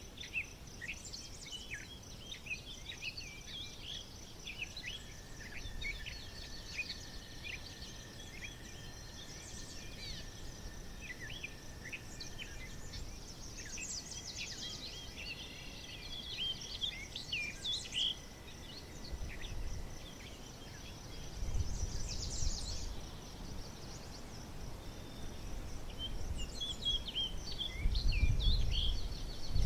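Outdoor ambience of many small birds chirping and singing over a steady high-pitched buzz, with low rumbling swelling about two-thirds of the way through and again near the end.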